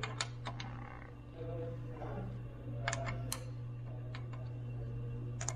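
Scattered sharp metallic clicks and clinks of hand tools working on motorcycle wheel hardware, in three small clusters: at the start, around the middle and near the end. A steady low hum runs underneath.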